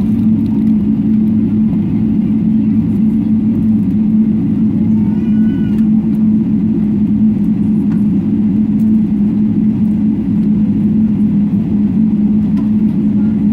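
Steady low cabin drone inside a Boeing 777-300ER airliner, a constant hum with an even rush over it and no change in pitch.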